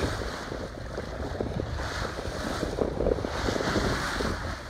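Wind buffeting the microphone over the rush of water along the hull of a sailing yacht under way.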